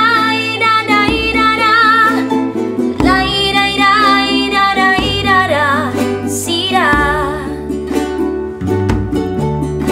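Background music: a song with a wavering sung melody over plucked-string accompaniment and a bass line that changes note every second or two.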